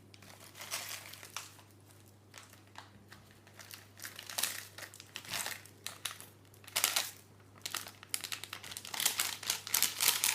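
Crisp packet crinkling as crushed ready-salted crisps are shaken out of it and sprinkled over a pasta bake. The rustles come in irregular spurts and grow busier and louder near the end.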